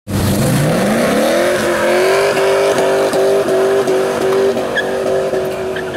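Car engine revving up over about a second and a half, then held at high revs on a steady pitch with a regular pulse, while the tires spin and squeal in a smoky burnout.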